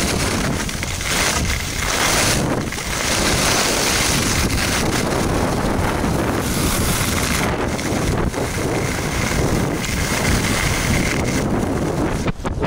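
Wind buffeting an action camera's microphone on a fast ski descent, mixed with skis hissing and scraping over groomed snow. Loud and continuous, with a brief lull near the end.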